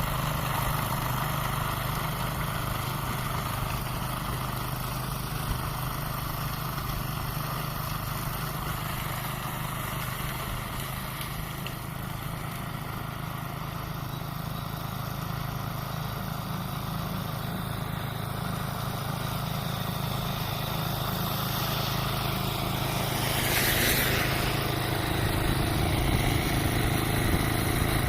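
An engine running steadily, with a brief hissing rush a little before the end.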